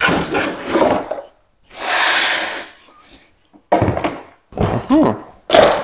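Handling noise as a chainsaw is pulled out of its fitted hard-plastic carrying case: plastic scraping, rubbing and knocking in irregular bursts, with one longer scrape lasting about a second and a sharp knock near the end.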